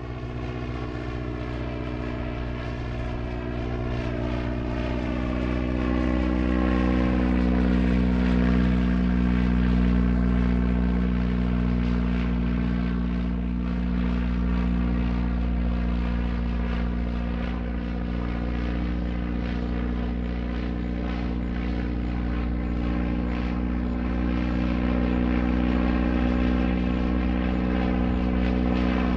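Propeller-driven airplane flying steadily, its engine giving a constant even hum with many steady overtones; it grows a little louder over the first several seconds, then holds level.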